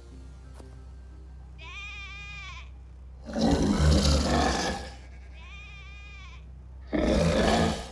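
A sheep bleats twice, each a short quavering call, and after each bleat a loud harsh noise bursts in, the first lasting about a second and a half, the second under a second. A steady low hum lies underneath.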